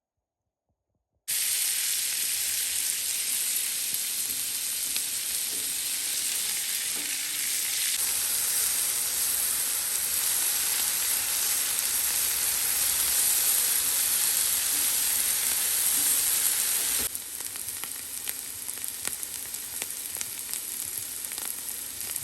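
Food sizzling in a hot frying pan: a steady hiss that starts abruptly about a second in and gets quieter near the end.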